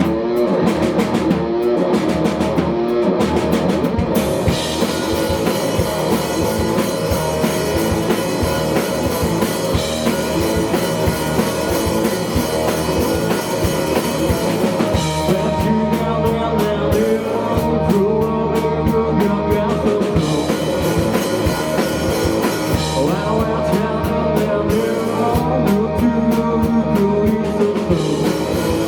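Live indie rock band playing at full volume: drum kit, electric guitars and bass in a steady, driving groove. The cymbals drop away in stretches, then come back.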